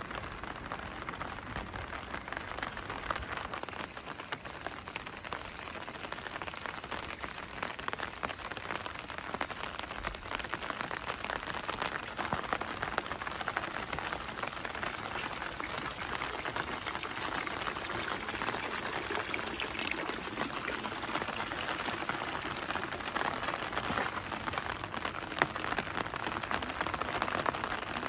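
Steady rain falling, a dense spread of small drop hits with no let-up.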